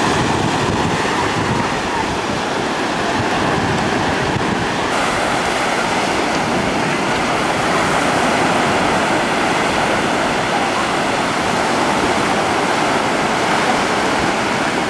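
Ocean surf breaking and washing up the beach: a steady, continuous rush of waves.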